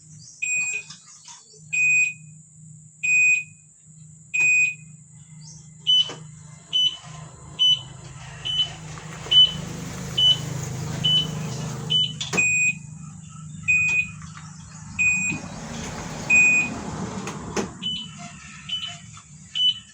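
E-bike's electronic buzzer beeping in a steady repeated pattern, about one short high beep a second, switching twice to a slightly higher, quicker beep and back. A low steady hum runs beneath.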